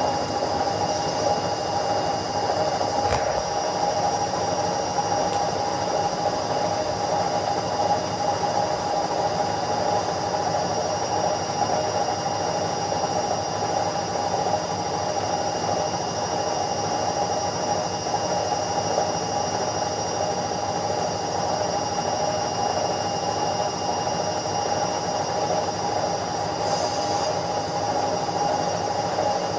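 Indesit 71252 washing machine spinning at speed: a steady whirring whine with several held tones over a rushing noise. A faint knock comes about three seconds in.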